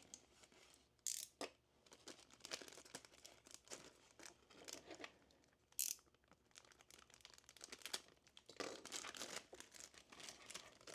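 Faint crinkling and rustling of plastic packaging as small figure parts are handled, with two short, sharp rustles about one and six seconds in and denser crinkling near the end.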